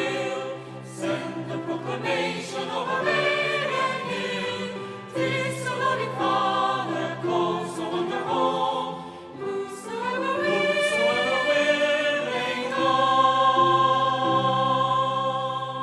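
A church choir singing a hymn together, with the last line ending on a long held chord from about two-thirds of the way in.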